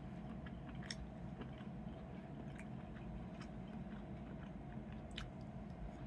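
A person chewing food with wooden chopsticks, with a few faint sharp clicks, the clearest about a second in and near five seconds, over a steady low hum.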